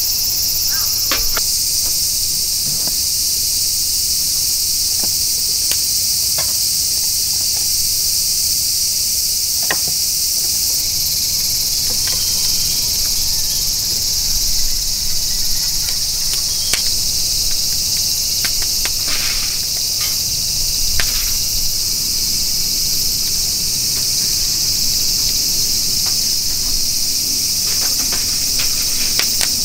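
A steady high-pitched chorus of insects, with occasional light clicks and knocks.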